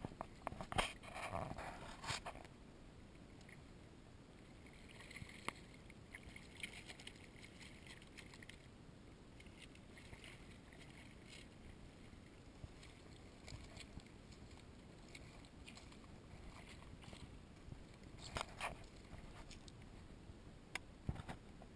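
A hooked stingray splashing as it is pulled through shallow marsh water, over a low steady hiss of water and wind. A quick run of sharp rattling clicks in the first couple of seconds and a short burst of splashing near the end.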